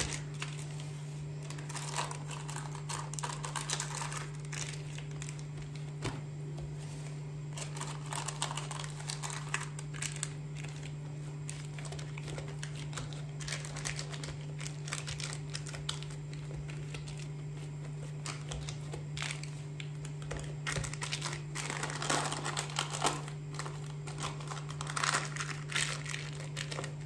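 Baking paper crinkling and rustling in irregular spurts as hands press and spread soft yeast dough out to the edge of a paper-lined round baking tray, with small clicks and taps; a steady low hum runs underneath.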